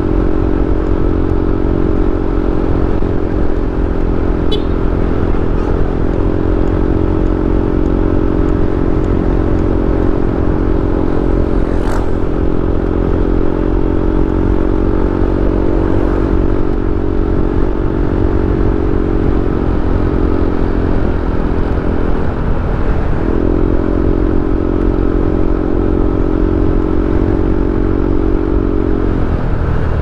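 Motorcycle engine running at a steady cruising pitch over a steady low rumble while riding. About 22 seconds in, the engine note dips briefly, then holds steady again, as with a gear change or a roll off the throttle.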